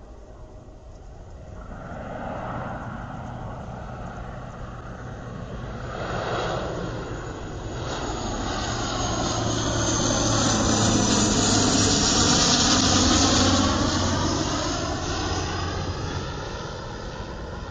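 Bombardier Dash 8-400 turboprop airliner flying low overhead on landing approach: the steady drone of its propellers and engines grows louder, is loudest about twelve seconds in, then fades as it moves away.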